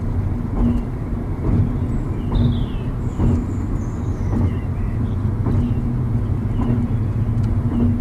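Car driving on an open road, heard from inside the cabin: a steady low rumble of road and engine noise, with a few faint high chirps over it.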